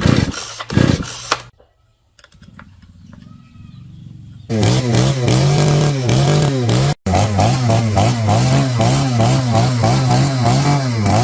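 Gasoline chainsaw engine running steadily and loud, starting about four and a half seconds in, with a regular wavering in its tone and a brief break a little past halfway. Before it come two short loud sounds and then a quieter low hum.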